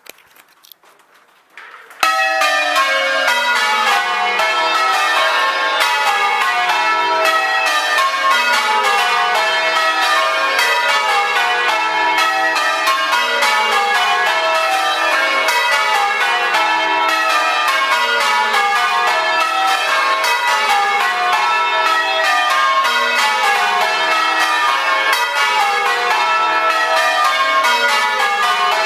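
The back eight of a ring of ten church bells rung full-circle in rounds: each bell strikes in turn down the scale from the highest to the heaviest, and the falling row repeats steadily. The ringing starts suddenly about two seconds in.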